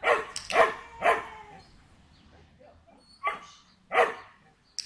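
Small black-and-white dog barking: three sharp barks in quick succession, a pause of about two seconds, then two more barks near the end.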